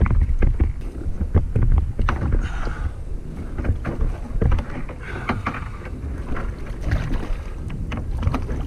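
Wind buffeting the microphone, with a run of short knocks and thumps against the kayak's hull and hatch as a large Spanish mackerel is handled and stowed.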